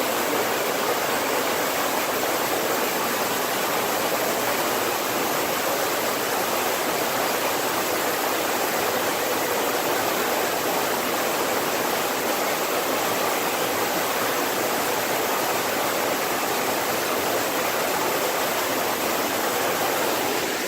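A waterfall's steady rush of falling water, even and unbroken.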